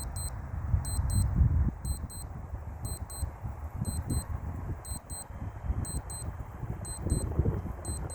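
Wind rumbling and gusting on the microphone, with a faint, high-pitched electronic double beep repeating about once a second; no siren sounding yet.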